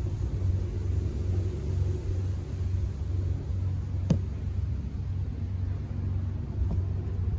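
Steady low rumble of handling and wind on a handheld camera's microphone as it is carried through dense brush, with one sharp click about four seconds in.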